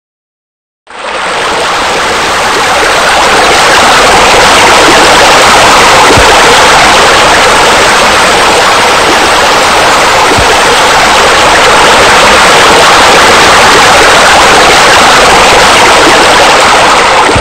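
Steady rushing, splashing water, as from a pool's spa spillover or water feature, starting suddenly about a second in.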